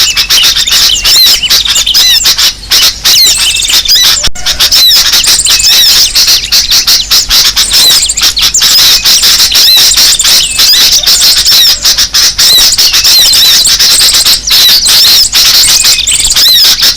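Loud, dense chorus of many small birds chattering and calling at once, sooty-headed bulbuls among them, with a constant tangle of overlapping chirps and sharp clicks: a bird-luring call track of agitated bulbuls.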